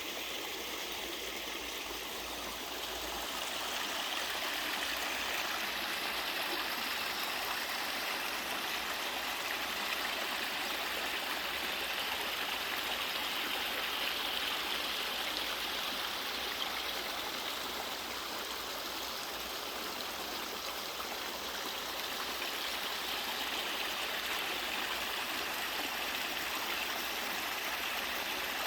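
Mountain stream sliding down a sloping rock waterfall: a steady, even rush of falling and splashing water.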